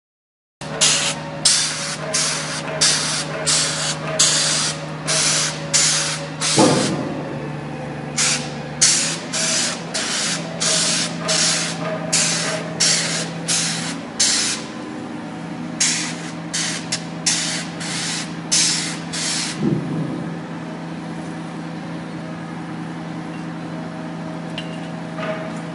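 Spray gun spraying liquid waterproofing coating onto a foundation wall in short bursts, one or two a second, over the steady drone of the spray machine. The bursts stop about twenty seconds in and the machine runs on alone.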